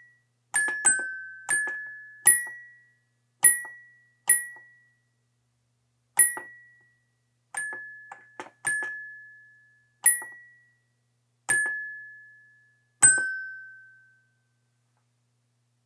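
A slow, sparse chime melody: about a dozen single bell-like notes on three or so pitches, each struck and left to ring out and fade. The last note dies away shortly before the end.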